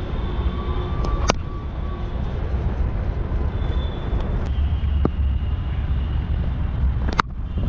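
Steady low rumble of wind buffeting a helmet-mounted action-camera microphone. A few sharp clicks break through it, one just over a second in and the loudest near the end.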